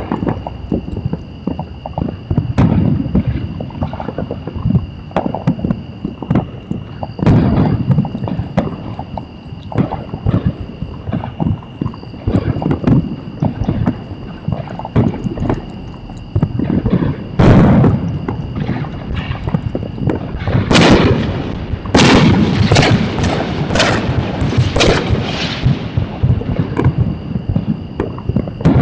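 Fireworks going off: a long run of irregular booms and bangs, rising to a rapid, dense string of sharp loud bangs about two-thirds of the way in.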